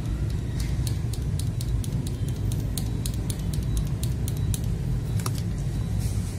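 Mechanical keyboard switches being pressed repeatedly: sharp plastic clicks, about three to four a second, over a steady low rumble.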